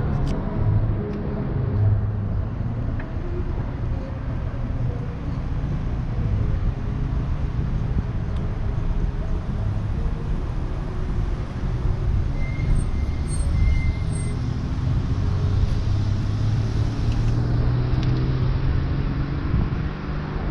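Street traffic: motor vehicles running and passing with a steady low engine rumble.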